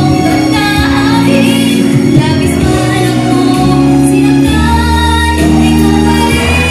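A woman singing into a handheld microphone over instrumental accompaniment, her voice sliding between held notes.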